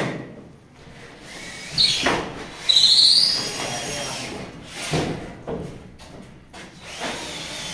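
Cordless drill driver driving a screw into a ceiling board, with a high whine that rises for about a second near the middle. There are a few sharp knocks around it.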